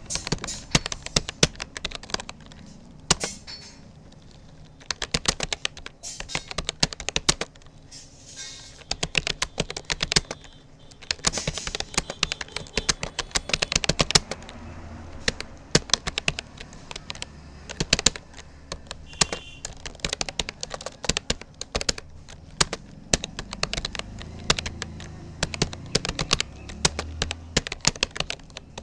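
Typing on a Rapoo computer keyboard: fast runs of key clicks broken by short pauses.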